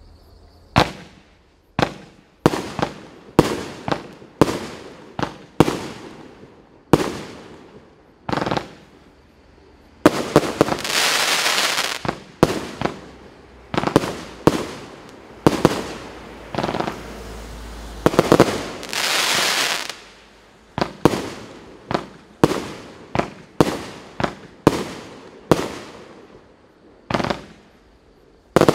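A 36-shot consumer fireworks cake firing shot after shot, sharp bangs with short fading tails, one or two a second. Twice in the middle a longer hissing stretch runs for about two seconds.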